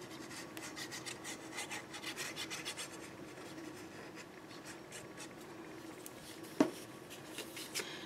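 Faint rubbing and scratching as the tip of a liquid glue bottle is drawn in lines across black cardstock, in many short strokes that thin out after about three seconds. A single sharp tap comes about six and a half seconds in.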